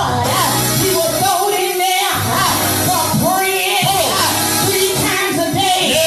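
Music with singing: voices carrying a wavering melody over a steady bass accompaniment, typical of church praise and worship singing.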